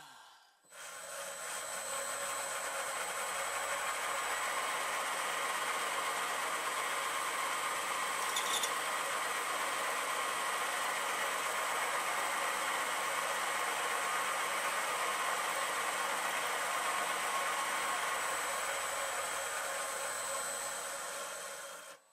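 Bridgeport milling machine spindle running steadily with a pointed centre in it, a steady motor hum and whine. It winds up over the first second or two and cuts off suddenly at the end.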